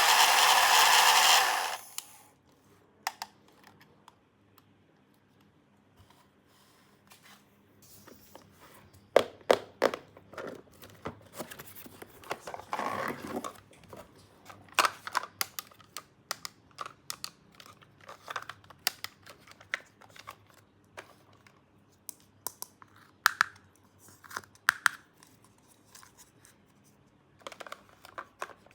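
A loud, steady noise cuts off about two seconds in. After it come scattered clicks and taps of small plastic toy pieces being handled, with bursts of crinkling and tearing packaging.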